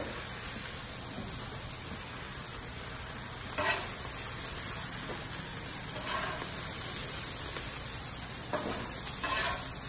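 Wagyu ribeye steaks and vegetables sizzling steadily on a hot Blackstone flat-top griddle, with a few brief scrapes and clinks of a metal spatula as the vegetables are scooped off into a steel bowl.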